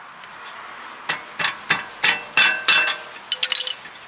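A steel Allen key tapping and knocking against the rear brake caliper carrier and its slide-pin bolts, pushing the bolts back. About six sharp metallic taps with a short ring, then a quick run of clinks near the end.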